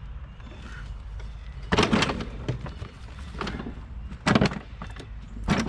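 Clunks and knocks of metal against metal as a pipe and pipe bender are worked onto a lawn mower's bent blade shaft: a cluster of knocks about two seconds in, another sharp one past four seconds, and one near the end.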